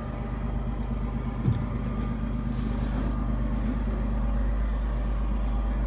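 A steady, low engine rumble, with a brief thump about a second and a half in.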